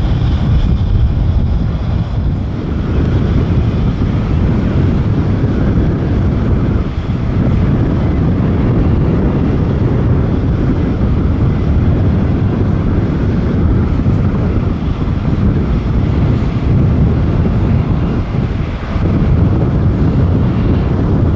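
Steady low rumble from the CFM56 jet engines of a Boeing 737-800 airliner in flight, with a few brief dips in level.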